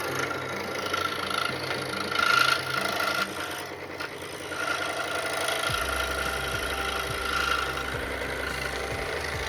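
Woodworking power tool running while cutting scrap wood, with a steady whine; it eases briefly about four seconds in, and a low hum joins about six seconds in.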